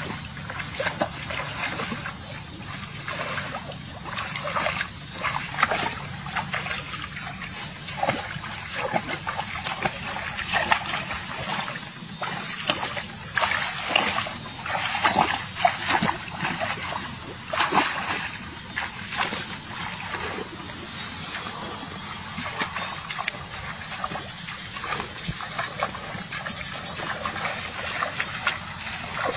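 Shallow muddy water splashing and sloshing in irregular bursts as a person wades and scoops through it with her hands, busiest in the middle.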